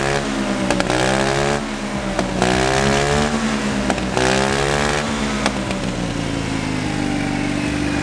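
50cc GY6 scooter engine blipped up and down several times through a cheap aftermarket muffler, with a few sharp pops from the exhaust. About six seconds in it settles to a steady run.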